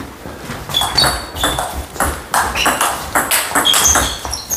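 Table tennis rally: the ball clicking sharply off the paddles and bouncing on the table, many quick hits in a row, some with a short high ring.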